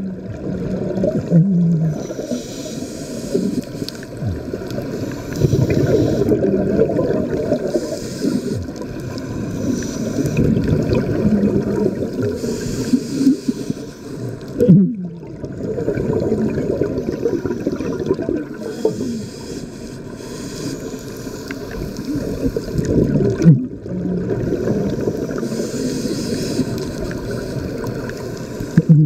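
Scuba divers' breathing heard underwater: a continuous rumbling gurgle of exhaled bubbles from the regulators, with a hiss of inhaling through a regulator every few seconds.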